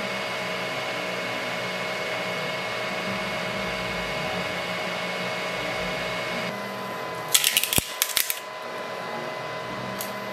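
Anycubic Vyper 3D printer's cooling fans humming steadily with the printer at rest after a finished print. About six and a half seconds in, part of the hum drops out, leaving a lower hum. Shortly after comes a quick run of sharp clicks and clatter, and there is one more click near the end.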